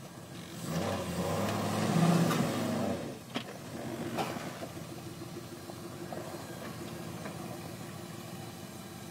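Jeep Grand Cherokee WJ engine revving up hard for about two and a half seconds, then dropping back to steady low running. A single sharp knock comes just after the revving falls away.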